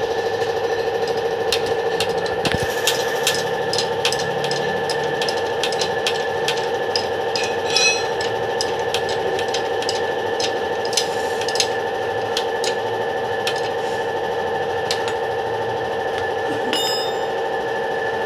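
Irregular light metallic taps and clicks of hand tools on metal, with two ringing metal strikes about 8 and 17 seconds in, over a steady mechanical hum.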